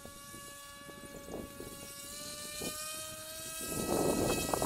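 Electric RC boat's brushless motor whining steadily at speed. Its pitch creeps up slightly about halfway through, and a rushing noise joins near the end.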